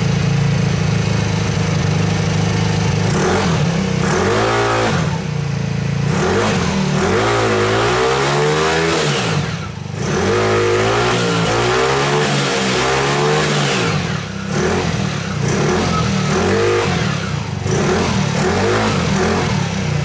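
2013 Peace Sports 50 scooter's 49cc 139QMB four-stroke single-cylinder engine running, its throttle blipped several times so the engine note rises and falls between spells of idle. It is running on a newly fitted replacement stator that cured its no-spark condition.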